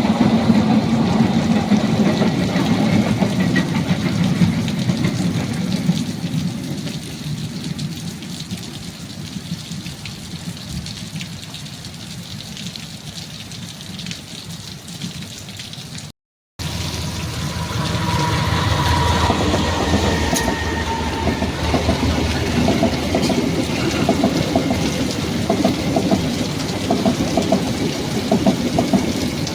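A train running by in heavy rain, its noise fading away over several seconds into the steady hiss of rain. After an abrupt cut about halfway through, louder rain and engine noise, with a brief steady tone a few seconds after the cut.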